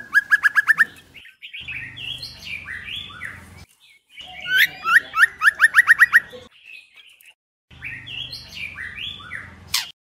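Female white-rumped shama calling: a quick run of about seven short sliding whistled notes at the start and another about halfway, between varied rising and falling whistled phrases, with sudden brief silent breaks.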